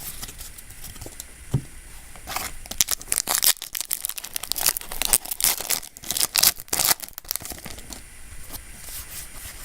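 Foil booster pack being torn open and crinkled: a run of sharp rips and rustling crackles in the middle stretch, quieter handling before and after.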